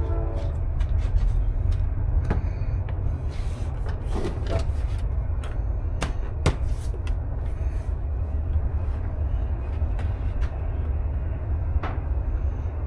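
Steady low rumble with scattered sharp clicks and knocks of parts being handled.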